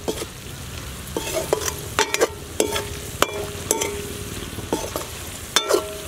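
Metal slotted spoon stirring cubed potatoes frying in oil in a metal kadhai: a steady sizzle with about a dozen irregular scrapes and knocks of the spoon against the pan, each leaving the pan ringing briefly. The loudest knocks come near the end.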